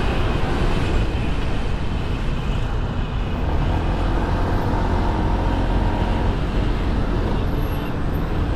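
Honda SH150i single-cylinder scooter ridden through city traffic: steady engine and road noise mixed with the sound of surrounding cars and buses, with a faint engine tone standing out in the middle.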